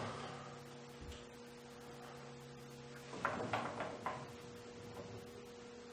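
Steady hum of a benchtop milling machine, with a few light clicks and knocks a little past halfway as the mill table is handled.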